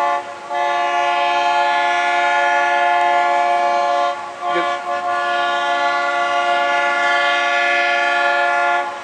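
Mount Washington Cog Railway train sounding its chord-like warning signal. There is a short toot, then a long blast of about three and a half seconds, a couple of brief toots, and a second long blast of nearly four seconds that cuts off near the end.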